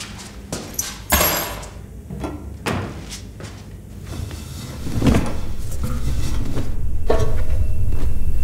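Knocks and clicks from a front-loading laundry machine's door and drum as laundry is pulled out of it. A low steady drone swells up from about five seconds in.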